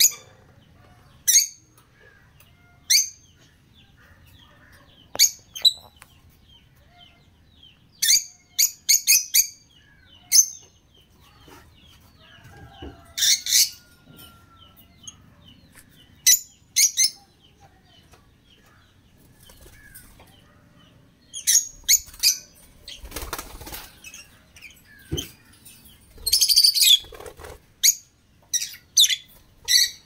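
A flock of caged African lovebirds giving short, high-pitched chirps, singly and in quick runs, getting busier in the last third, with some wing-flapping.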